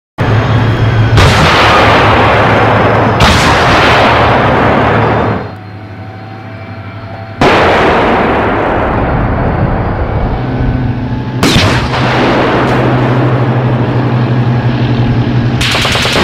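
Tank main-gun fire on a range: about six loud blasts at uneven intervals, each followed by a long rolling echo, with a steady low hum underneath.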